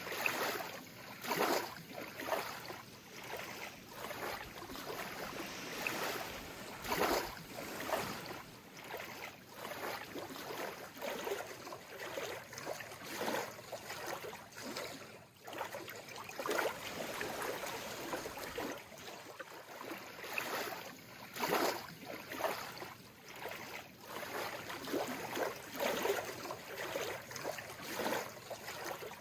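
Calm sea water lapping gently in small irregular splashes, each swell rising and falling every second or two.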